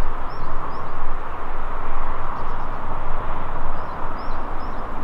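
Steady outdoor noise with wind rumbling on the microphone, and a small bird giving short high chirps a few times near the start and again near the end.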